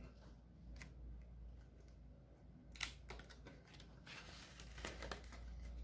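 Faint handling of paper banknotes and the pages of a ring-binder cash-envelope wallet: soft rustling with a few clicks, a sharp one about three seconds in, then a denser rustle as the binder page is turned over.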